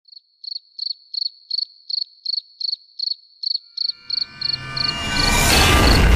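A cricket chirping steadily, about three short high chirps a second. From about four seconds in, a rushing noise with a deep rumble swells up and drowns it out.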